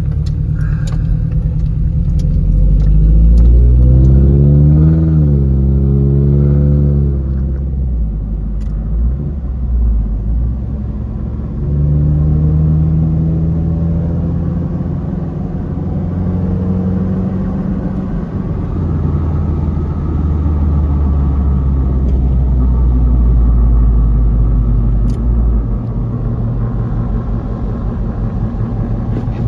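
Freshly installed Toyota 3RZ-FE 2.7-litre four-cylinder engine in a 1997 Tacoma pulling the truck on the road at varying rpm. The engine note rises in pitch a few seconds in, then settles into a steady run.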